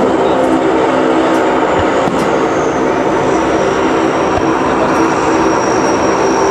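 Steady, loud drone of a jet engine, with a thin high whine that slowly drops in pitch. No distinct firework bangs stand out above it.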